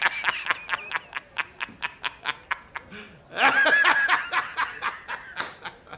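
Comedy meme sound effect: a quick run of short, pitched, chuckle-like pulses, about five a second, broken about three and a half seconds in by a longer high-pitched sound, then more pulses fading out.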